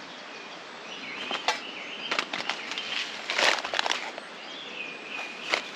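Scattered rustling and light clicks of camp gear being handled, the loudest rustle about halfway through, with a few faint bird chirps behind.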